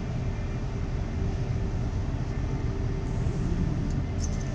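Class 360/2 electric multiple unit running, heard from inside the carriage: a steady low rumble with a faint whine. A few brief high squeaks come near the end.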